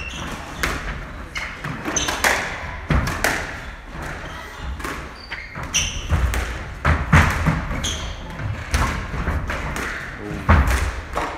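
Squash rally: the ball knocking sharply off rackets and walls about once a second, with players' shoes squeaking and thudding on the wooden court floor.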